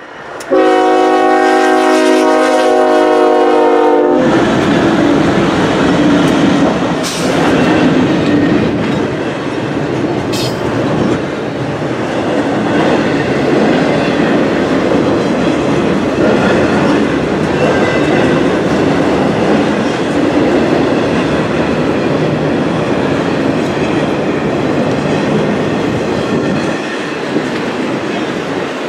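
Union Pacific diesel locomotive horn sounding one long blast that cuts off about four seconds in, then the locomotives pass and double-stack intermodal container cars roll by with steady wheel-on-rail rumble and clickety-clack.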